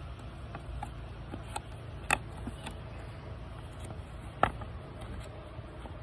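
A sheet of stiff paper being handled and folded over a cardboard box, with light rustles and small crackles and two sharp snaps of the paper, about two seconds in and again a little over two seconds later, over a steady low rumble.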